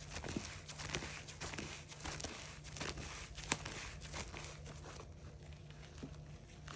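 Slime being squished and stretched by hand, making faint sticky clicks and small crackling pops, which thin out about five seconds in.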